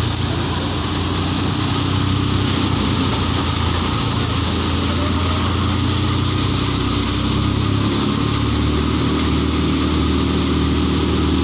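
KS paddy thresher running steadily under load while threshing paddy: a constant machine hum with a broad rushing hiss over it, as threshed grain streams out of the outlet chute.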